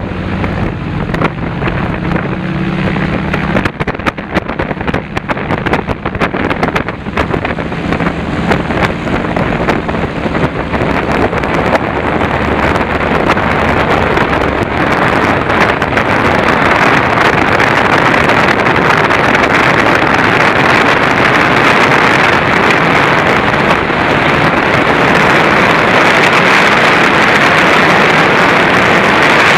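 North American T-6 Texan's nine-cylinder Pratt & Whitney R-1340 radial engine and propeller at takeoff power, heard from the tail. A clear engine tone in the first few seconds gives way to rough rattling up to about eleven seconds in. After that a rushing-air hiss grows steadily louder as the airplane gathers speed.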